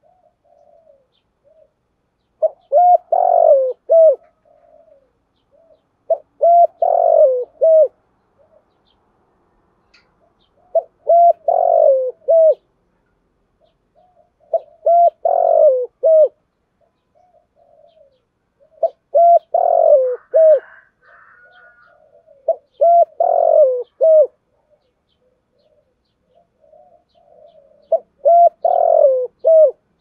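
Spotted dove cooing: seven phrases about four seconds apart, each a short run of three or four low notes, with soft short notes in between.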